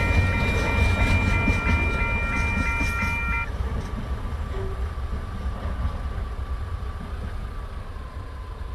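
TasRail container freight wagons rumbling over the level crossing and fading as the train moves away. The crossing's warning bell rings with it, then stops suddenly about three and a half seconds in.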